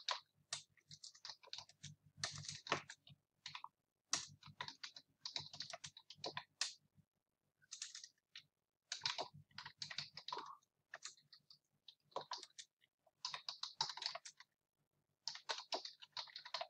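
Computer keyboard typing in quick runs of keystrokes separated by short pauses.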